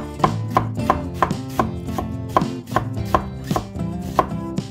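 Sharp, evenly spaced knocks, about three a second, over background music with held notes.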